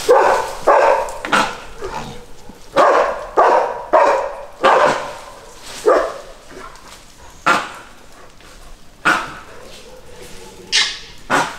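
Dogs barking at langurs, about a dozen sharp barks. They come in quick runs over the first few seconds, then singly at intervals of a second or two.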